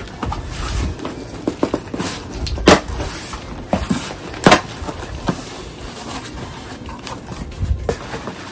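Cardboard shipping box being handled and opened: rustling and scraping with scattered sharp knocks, the loudest two about three and four and a half seconds in.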